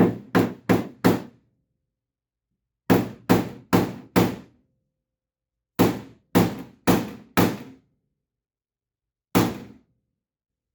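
A hammer striking the sticking-out edge of a 1972 Ford Bronco's fender to flatten it. Three quick runs of four blows about half a second apart, then a single blow near the end.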